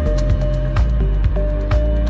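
Minimal techno: a steady kick drum about two beats a second under held synth tones and short clicking percussion.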